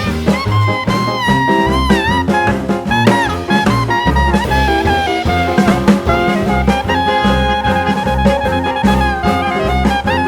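Background music: upbeat swing jazz with a horn melody over walking bass and drums.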